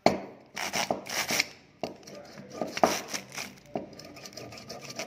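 Push-down spinning whisk being pumped by hand against a table, its metal wires and plunger mechanism giving a series of irregular clicks and clatters.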